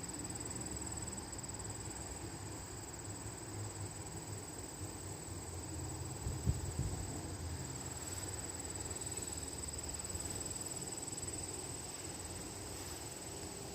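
Wind buffeting the microphone in a low, uneven rumble, under a steady thin high-pitched whine. A single short thump comes about six and a half seconds in.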